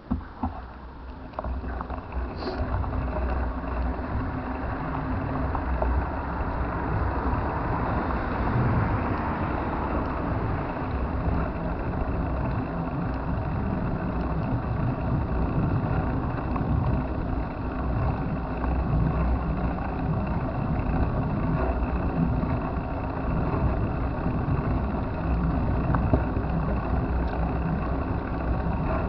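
Steady low rumble of wind and road noise from a moving bike ride, building up over the first two seconds and then holding steady.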